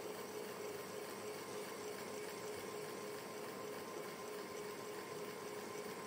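Electric fan running steadily: an even airy noise with a steady hum in it.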